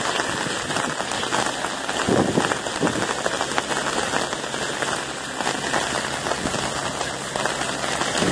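Rain falling steadily, a dense even hiss with no voices.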